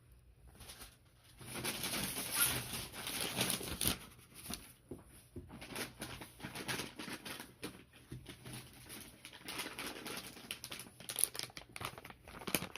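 Packaging rustling and crinkling as items are handled and pulled out of a delivery box, with quick clicks and crackles, starting about a second and a half in.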